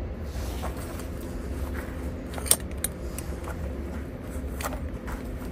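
Light metallic clicks and clinks, about seven in all, as welded steel nails with caged ball bearings are handled against a bicycle sprocket cassette. The sharpest click comes about two and a half seconds in, over a steady low hum.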